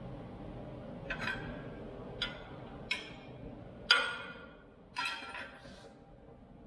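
Five light metallic clinks of steel tools and parts being handled on a steel welding table, each with a short ring. The loudest comes about four seconds in, over a faint steady hum.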